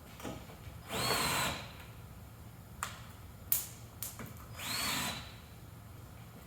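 Power drill with a T30 Torx bit driving screws back in. It makes two short runs, each whining up in pitch and then holding, with a few sharp clicks between them.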